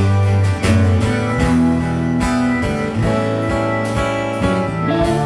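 Live country band playing an instrumental passage: strummed acoustic guitar, electric bass, keyboard and drum kit, with drum hits keeping a steady beat.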